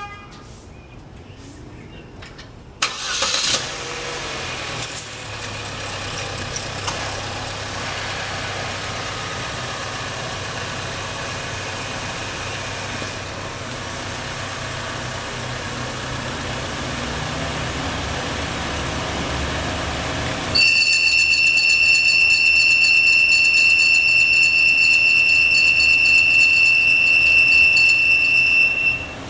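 A 2012 Chevrolet Cruze 1.4L turbocharged engine starts about three seconds in and idles steadily. About twenty seconds in, a loud, steady, high-pitched squeal from the engine compartment sets in over the idle and holds until it cuts off suddenly near the end; the owner suspects a bad idler pulley.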